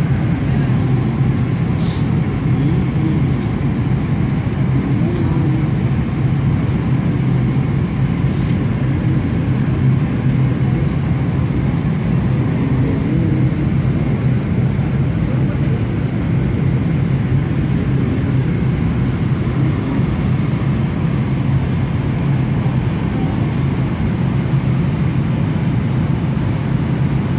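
Steady airliner cabin noise in flight: a constant low drone of the jet engines and rushing air. Faint voices and a couple of light clicks sit under it.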